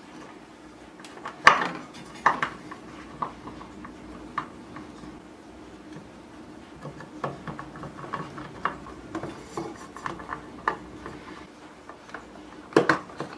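Screwdriver and small screws clicking, tapping and scraping on the metal case of an Optimus XL-200 car amplifier as it is screwed back together. Scattered metallic clicks, the loudest about a second and a half in and again near the end.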